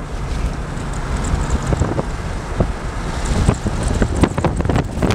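Wind buffeting the microphone over the road noise of a moving vehicle. From about three seconds in there is a run of short, sharp taps and knocks.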